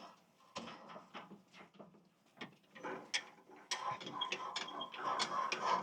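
Sawmill head's hand-cranked lift mechanism being turned, with mechanical clicking and rattling from the crank gearing. The clicks are sparse at first and become a busier, steady run of clicks about four seconds in. It is turning on new thrust bearings set tight and greased, which makes it smooth but slightly stiff.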